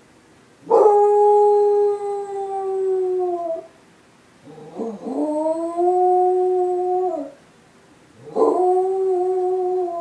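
A beagle howling, set off by a civil defense siren: three long howls of about three seconds each, each starting rough, held steady and dropping in pitch at the end.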